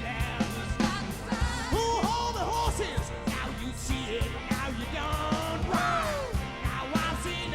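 Live soul band playing a rock-and-roll passage: a drum-kit beat under melody lines that bend up and down in pitch.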